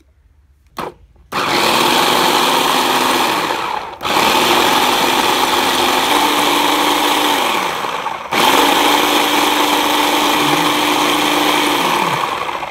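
Electric blender motor running at full speed while it blends spinach and coconut milk into a smoothie, in three runs, its pitch falling away as it winds down at the end of each. A short knock comes about a second in, before the motor starts.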